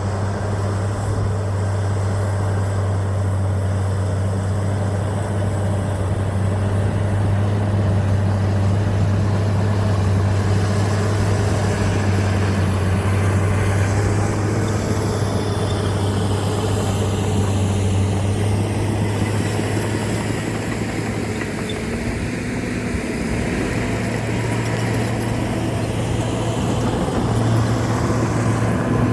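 John Deere 750J crawler dozer's diesel engine running steadily as the machine works sticky clay, its pitch shifting slightly about two-thirds of the way through.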